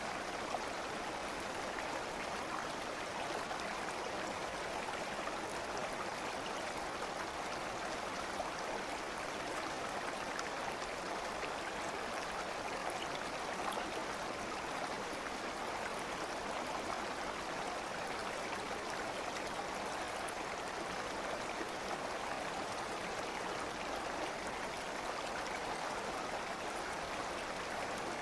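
Steady flowing water of a stream, an even rushing and babbling that does not change.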